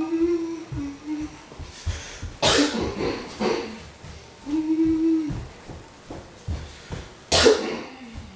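A person coughing: two loud coughs about five seconds apart, the second the loudest, with short hummed vocal sounds between them.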